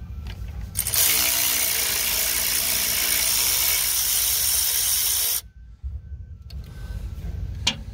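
Milwaukee cordless ratchet running steadily for about four and a half seconds, spinning out the alternator's mounting bolt while a wrench holds the nut, then stopping suddenly. A couple of light metal knocks follow.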